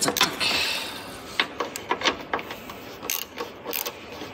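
Irregular clicking and light metallic ticks of hand tools working on small body screws while a headlight assembly is unbolted.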